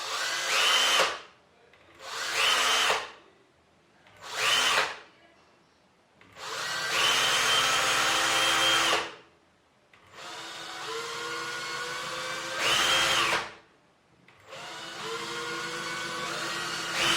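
Electric drill run in about six short trigger pulls, each spinning up quickly to a steady high whine and winding down when released; one run is held at part speed for a few seconds before going to full speed.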